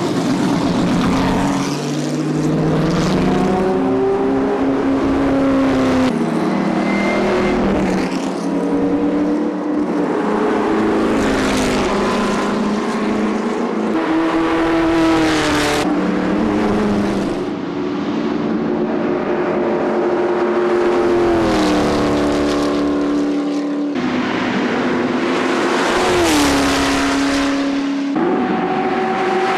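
Ford GT40 race cars' V8 engines revving and accelerating away, the pitch climbing and dropping again and again as they change gear and pass, one car after another.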